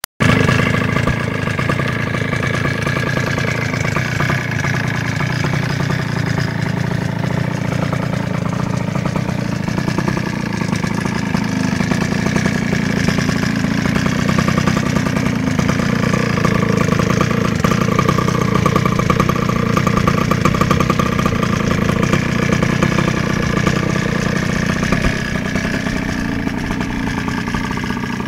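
49cc two-stroke pocket bike engine idling steadily, its pitch wavering slightly.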